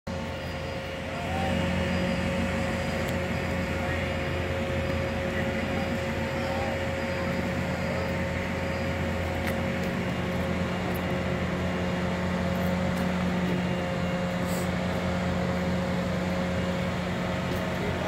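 Heavy machinery running with a steady low drone and a faint steady whine, growing louder about a second in and then holding level.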